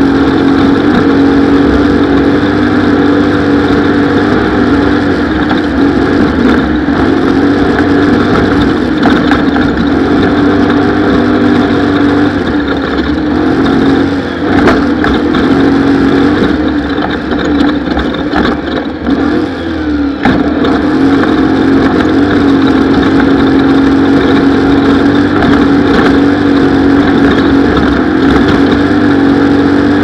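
Off-road race vehicle's engine running hard at steady high revs, the revs dropping and wavering for several seconds around the middle before settling back to a steady pitch. A few brief knocks are heard along the way.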